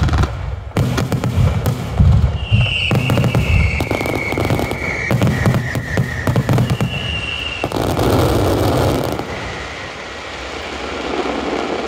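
Aerial fireworks barrage: shells bursting in quick succession with deep booms and crackle, and high whistling tones over the bursts a few seconds in and again later. The bursts thin out and fade in the last few seconds.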